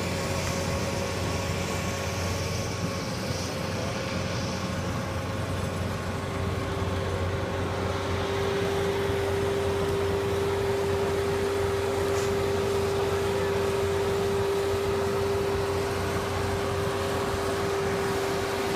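Rubber-tracked 100 hp paddy tractor with a rotary tiller running steadily as it tills a flooded field, its drive giving a steady whine that grows louder about halfway through.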